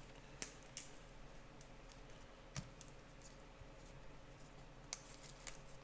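Faint, scattered light clicks and taps, about seven irregularly spaced, from trading cards in plastic sleeves and top-loaders being handled and set down.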